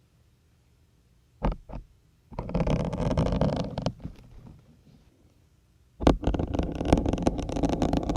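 Syringes pushed into a dense grey foam sponge: two short taps about a second and a half in, then two crackling stretches of a second or two each as the needles press through the foam.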